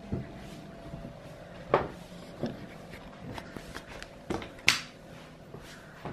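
Irregular footsteps, knocks and clicks in a small room as a wooden door is pushed open, over a faint steady hum. The sharpest click comes about three-quarters of the way through.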